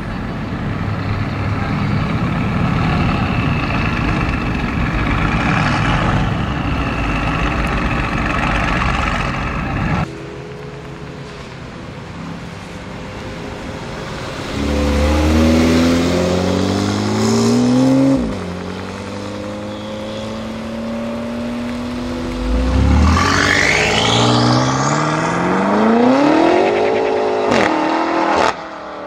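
Sports car engines. For about ten seconds one runs loud and steady; then, after a sudden cut, there are two bursts of full-throttle acceleration, each rising in pitch and dropping at the gear changes, the second climbing more steeply near the end.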